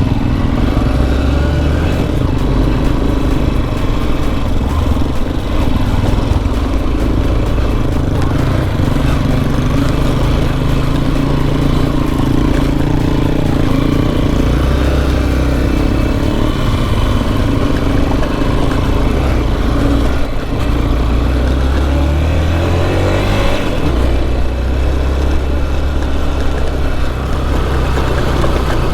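Motorcycle engine running steadily while being ridden along an off-road trail, with the engine note dropping and rising a few times as the rider changes speed.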